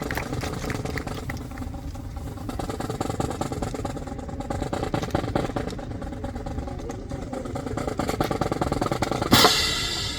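Snare drum roll accompanying a drill display, ending in a loud cymbal crash that rings on, about nine seconds in.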